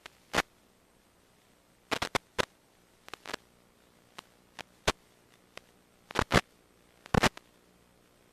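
Irregular short crackles and pops of radio static over an otherwise near-silent hiss, from the drone's analog video link rather than any sound on the beach.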